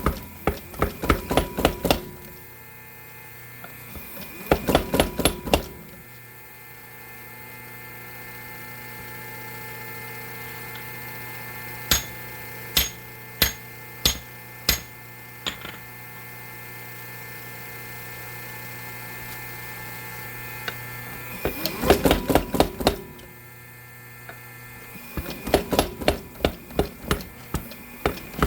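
A power hammer (tire hammer) pounds hot steel in four bursts of rapid, evenly spaced blows, its motor humming steadily between them. In the middle come about five single sharp metallic strikes.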